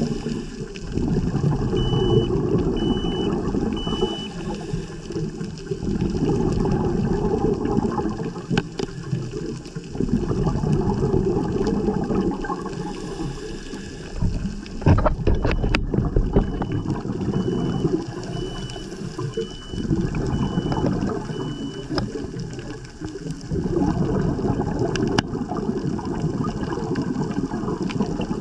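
Scuba diver's regulator breathing underwater: exhaled bubbles gurgling in bursts about every five seconds.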